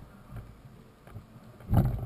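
Mountain bike rolling over a rough grassy dirt singletrack, picked up by a bike-mounted camera: a low rumble of the knobby tyres and the rattling bike, with a louder low thump near the end.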